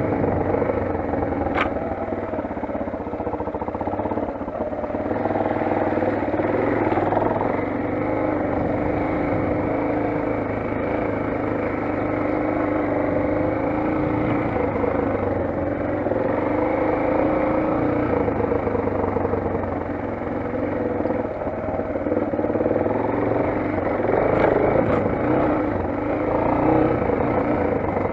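Motoland XR 250 motorcycle engine running under way, its pitch drifting up and down a little with the throttle.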